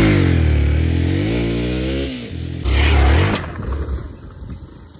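Small KTM kids' motocross bike engine revving: the pitch dips and climbs over about two seconds, a second short burst of revs comes a little past the middle, then the engine drops back much quieter.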